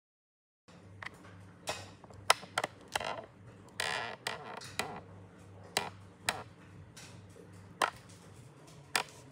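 Irregular light clicks and knocks, with a couple of brief swishing sounds, over a faint steady hum: objects being handled.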